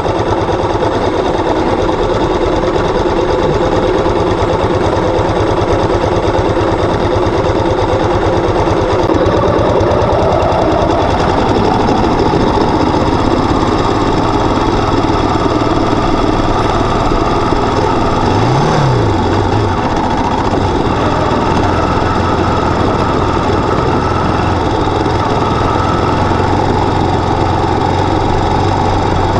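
Enduro motorcycle engine running steadily under way, its pitch rising about ten seconds in and briefly dipping and rising again near the nineteen-second mark.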